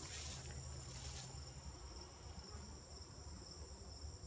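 A steady, high-pitched insect chorus of crickets trilling in the grass, faint and unbroken. A brief rustle comes in the first second or so.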